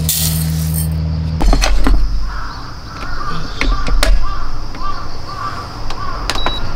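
Dry rice poured from a measuring cup into the inner pot of a small Koizumi rice cooker, a brief hiss over a steady hum. Then come knocks of handling and a low rumble, birds calling about twice a second, and a short high beep near the end as a button on the rice cooker is pressed.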